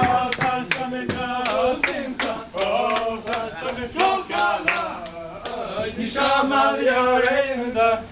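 A group of men singing a melody together, with sharp claps in time.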